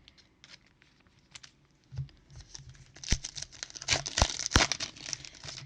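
Trading-card pack wrapper crinkling and tearing, with cards being handled: a few faint ticks at first, then dense crackling with several sharp snaps from about three seconds in.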